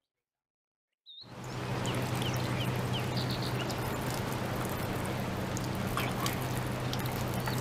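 Water poured from a steel cup trickling and splashing over hands being washed, starting about a second in after dead silence, over a steady low hum, with a few faint bird chirps.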